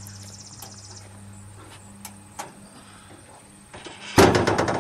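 Hood latch of a 1965 Rambler Marlin being worked with a few faint clicks, then near the end a sudden loud metallic creaking as the hood is released and swung up on its hinges and springs.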